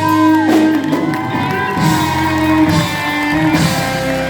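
Live band playing the closing bars of a ballad, with guitar prominent over sustained chords.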